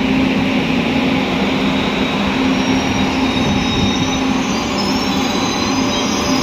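Frecciarossa ETR500 high-speed electric train moving slowly past, a steady low electric hum from its power car over the rolling noise of the wheels on the rails. A faint high wheel squeal creeps in about halfway through.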